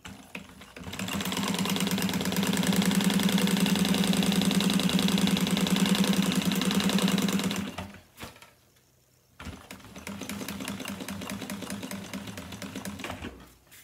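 Juki industrial sewing machine stitching webbing onto sail cloth: a fast, even run of stitching for about seven seconds, a stop of about a second and a half as the work is pivoted at a corner, then a second, quieter run of stitching for about four seconds.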